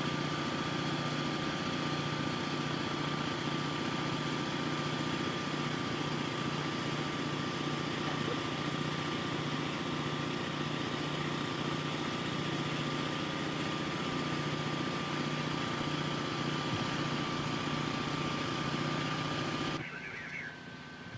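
An engine idling steadily, with a thin steady high tone above it; it cuts off abruptly near the end.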